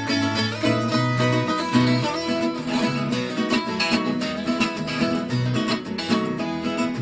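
Background music of plucked acoustic guitar, with a steady bass line and quick picked notes.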